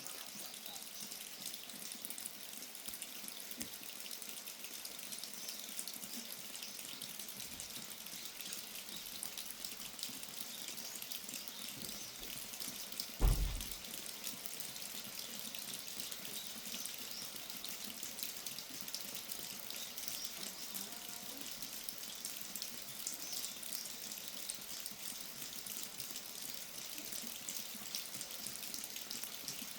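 Steady rain falling and dripping, an even patter with fine drops. About thirteen seconds in there is a single short low thump.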